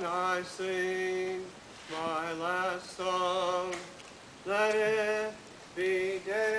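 A man's voice chanting unaccompanied, in about six long held phrases with a slight waver and short pauses between them.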